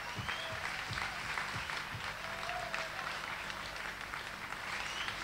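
Large outdoor concert crowd applauding, with scattered whoops and whistles.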